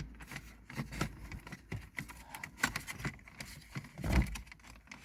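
Small irregular plastic clicks and rattles of wiring connectors being slid off the back of a Renault Mégane III's dashboard display screen, with a low thump about four seconds in.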